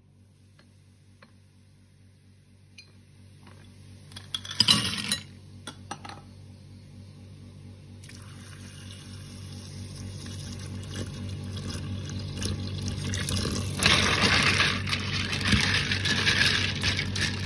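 Blood cockle shells clattering and clinking in a plastic bowl, then water running into the bowl and building up, and near the end the cockles being swished around in the water by hand, shells clinking.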